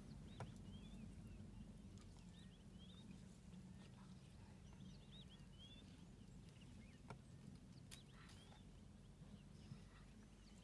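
Faint birdsong: short chirping phrases from small birds, repeating every second or so, over a low steady background rumble. A few sharp clicks come through, two of them near seven and eight seconds in.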